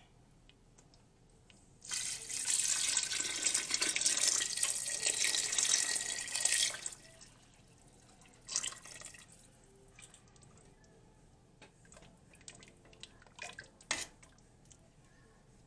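Water being poured into a pot of gumbo base: a steady splashing pour starting about two seconds in and lasting about five seconds. A few faint knocks follow.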